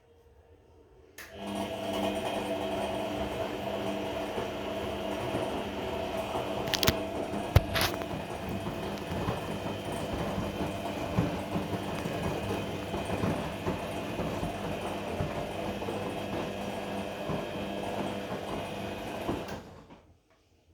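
Regal 1229 T (Vestel-built) washing machine drum turning in a cotton 30°C wash. Its motor runs steadily for about nineteen seconds, starting about a second in and stopping near the end, with a steady tone that the owner likens to a belt noise. Two sharp knocks come a little before the middle.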